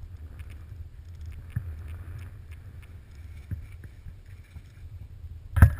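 Wind buffeting the camera microphone as a steady low rumble while skis hiss over powder snow, with scattered light clicks. A sudden loud burst of noise comes near the end.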